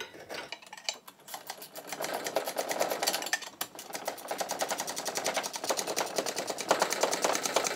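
Small hand ratchet clicking fast and evenly as it is worked to tighten a fitting on the heater's hose connections, a few separate clicks first, then a steady run from about two seconds in.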